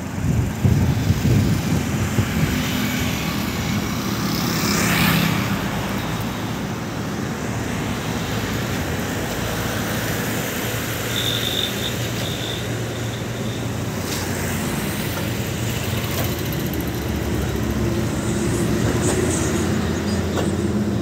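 Steady low rumble of a heavy diesel truck engine idling, mixed with road traffic; a passing vehicle swells and fades about five seconds in.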